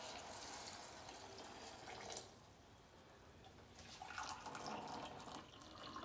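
Hot water poured from an Aigostar glass electric kettle into a bowl of dry oats, a faint trickling stream that stops about two seconds in and starts again about two seconds later.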